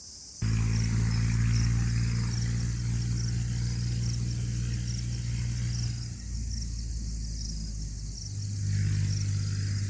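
A motor engine running with a low, steady hum that starts suddenly about half a second in, its pitch shifting slightly a couple of times.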